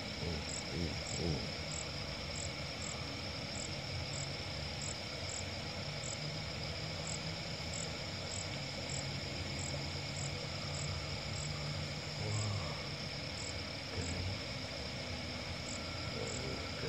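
Night chorus of insects and frogs: a steady high trill with a short chirp repeating evenly about every two-thirds of a second, over a low steady rumble.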